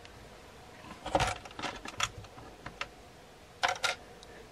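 Small plastic LEGO tiles clicking and clattering as they are set down one after another on a LEGO model. There is a cluster of clicks about a second in, a few more through the middle, and a quick double click near the end.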